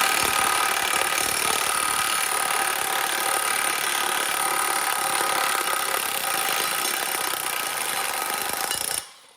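Power tool running steadily with a whine, backing a bolt out of the engine mount, then stopping suddenly near the end; the bolt comes out with galled threads.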